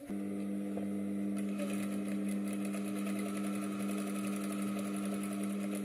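Industrial flatbed sewing machine starting up and stitching a seam through cotton fabric at a steady speed: a constant motor hum with fast, even needle ticking.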